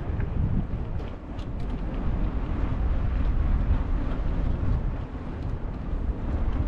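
Wind buffeting the microphone: an uneven low rumble that swells and dips.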